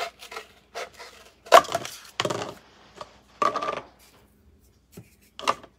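Scissors cutting through a cardboard paper towel tube: several short, crackly snips at uneven intervals, the loudest about one and a half seconds in.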